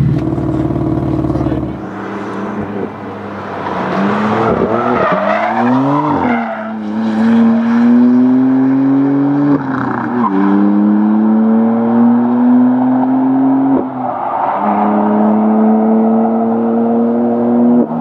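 BMW M4's twin-turbo straight-six accelerating hard away through the gears: the note climbs steadily in each gear and drops sharply at each upshift, about every four seconds, after a few quick rises and falls in revs. The first two seconds hold a deep, steady engine rumble.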